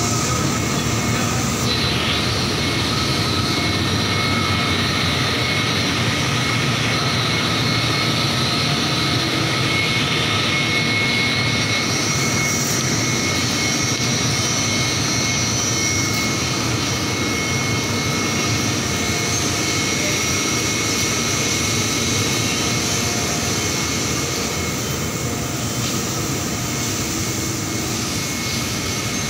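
Industrial fabric printing and drying machinery running: a steady mechanical din with a constant high-pitched whine over it, a little quieter near the end.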